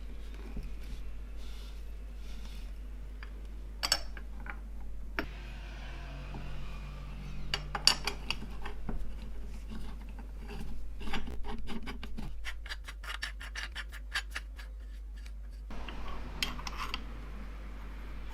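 Small metal parts handled and worked: scattered clinks, scrapes and rubbing, with a fast run of ticks for a couple of seconds past the middle, over a low steady hum.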